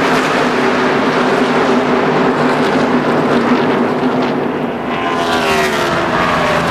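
A field of NASCAR Winston Cup stock cars running at full throttle, their V8 engines making a loud steady drone. About five seconds in, cars pass close by and their engine pitch slides.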